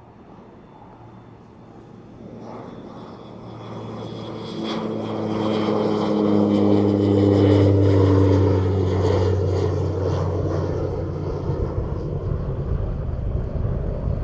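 Rolls-Royce turbine engine and propeller of a Cessna 210 Silver Eagle conversion, growing louder over several seconds and then fading as the aircraft goes past, the propeller tone dropping slightly in pitch. Wind noise rises near the end.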